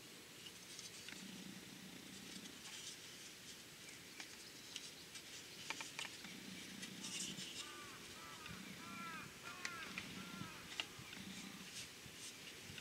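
Faint clicks and taps of plastic and metal parts being handled as a Honda Super Cub's headlight unit, chrome rim and reflector, is fitted back together. A few short bird chirps come in about the middle.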